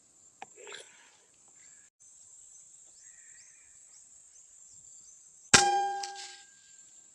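A single sharp metallic crack about five and a half seconds in, with a brief ringing tone that dies away within a second. A steady high-pitched insect drone runs underneath, and there is a faint click and rustle near the start.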